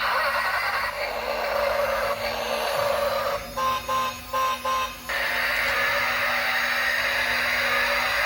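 Electronic engine sound effect from a toy sports car's small built-in speaker. It runs steadily, then breaks into choppy pulses with short beeps about halfway through.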